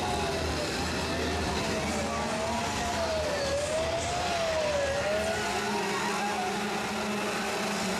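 A siren wailing, its pitch rising and falling about every one and a half seconds, stopping about five seconds in, over the steady din of several chainsaws running.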